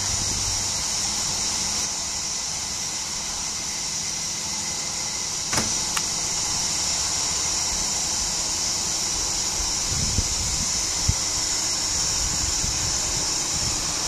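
Chorus of cicadas buzzing steadily and high-pitched without a break, with two short clicks about six seconds in.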